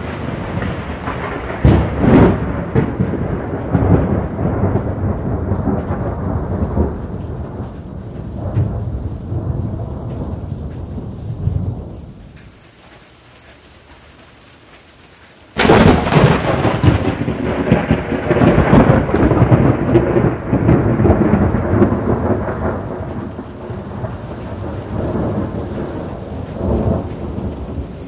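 Monsoon thunderstorm: rolling thunder over steady rain. The thunder eases off for a few seconds, then a sudden sharp thunderclap comes a little past halfway and rumbles on for a long time.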